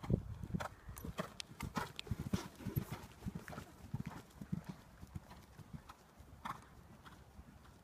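Horse's hoofbeats on a sand arena surface, a run of dull thuds that thin out and grow fainter after about five seconds as the horse moves away.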